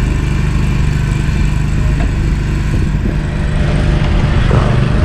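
An engine running steadily with an even, low hum, no change in speed.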